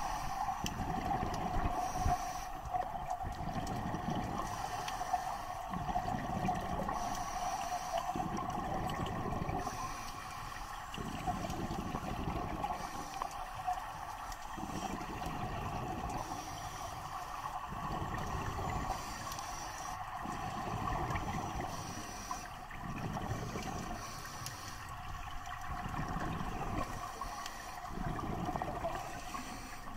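Underwater sound of a scuba diver's breathing: regulator exhaust bubbles rumbling out in repeated surges every few seconds, over a steady hum.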